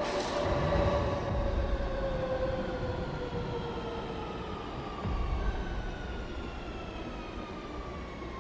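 Elevated train pulling into a station: low rumble of the wheels on the track under a whine that falls slowly in pitch as the train slows.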